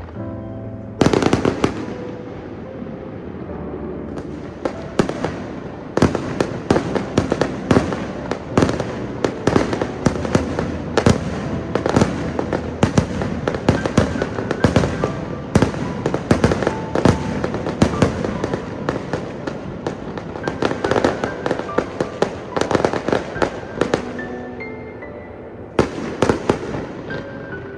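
Fireworks bursting in a rapid, dense barrage of sharp bangs and crackles that starts about a second in, thins out near the end and picks up briefly again, with music playing underneath.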